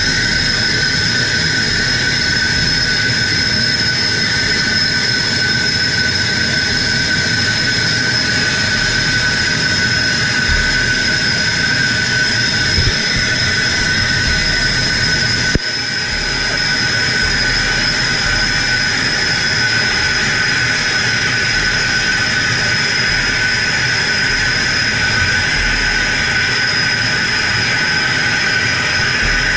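Compressed air hissing loudly and steadily through a hyperbaric decompression chamber's valves, with two steady whistling tones over the rush. The sound dips briefly about halfway through.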